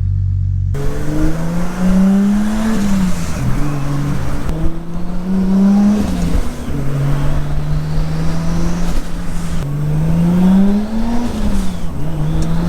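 Nissan Skyline R33's engine pulling through the gears: its pitch climbs and drops back at each upshift, three times, with a stretch of steady cruising between. A muffled steady sound cuts off under a second in.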